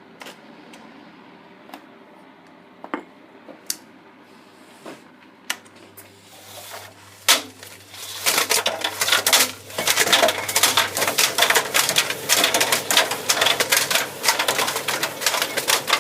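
A few separate knocks, then from about halfway in a dense, continuous clatter of hard loose objects tumbling and rattling around inside a running tumble dryer drum.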